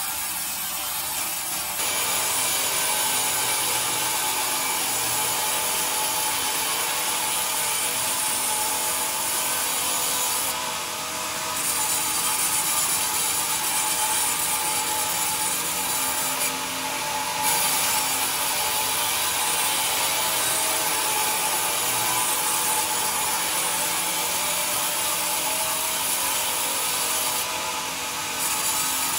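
Band sawmill blade cutting lengthwise through a pine beam on the carriage: a steady, hissing sawing noise that dips briefly three times.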